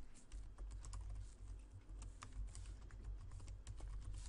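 Computer keyboard typing: a run of light, irregular key clicks over a low steady hum.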